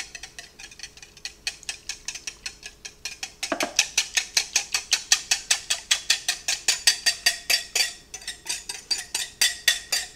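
Wire whisk clinking rapidly against the inside of a glass mixing bowl, about five sharp taps a second, as barbecue sauce is scraped out of the bowl.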